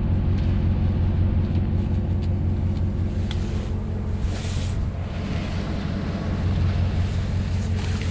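Motor vehicle engine running at a steady speed, a constant low drone.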